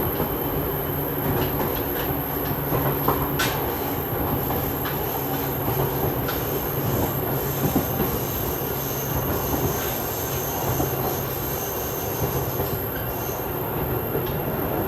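Interior running sound of a Seibu 2000 series electric train under way: steady rumble of wheels and traction motors with a thin steady high whine. A few sharp clicks of wheels crossing rail joints come near the start and about three and a half seconds in, and a high wheel squeal is heard for a few seconds in the middle.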